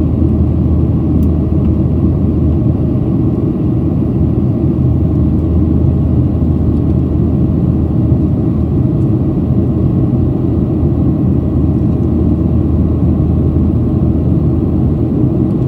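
Steady low rumble inside the cabin of a Boeing 737-800 in climb: its CFM56-7B turbofan engines and the airflow over the fuselage, heard from a window seat over the wing.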